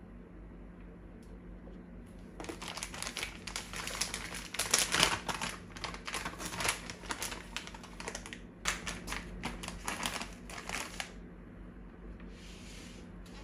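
Plastic bag of shredded cheese crinkling and rustling in quick, irregular bursts as it is shaken out over slices of toast, starting about two seconds in and stopping about eleven seconds in.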